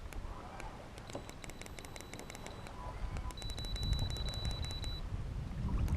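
Low rumble of wind and water around a kayak being moved. Two runs of rapid, even clicking with a thin high tone come in, one a little after a second in and one lasting from about the middle to near the end.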